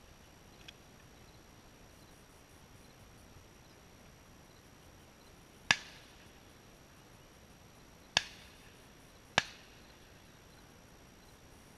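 Three shotgun shots at doves: one about six seconds in, then two more a second or so apart near the end.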